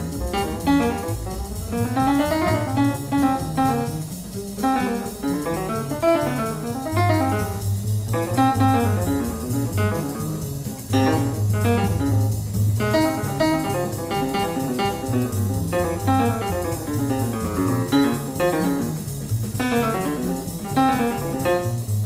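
Live late-1940s jazz: fast melodic runs rising and falling over bass and drums.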